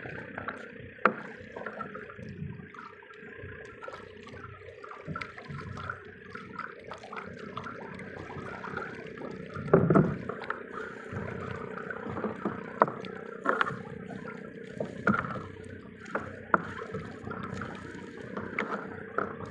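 Water sloshing and gurgling against a small boat's hull, with irregular knocks and a louder thump about halfway through.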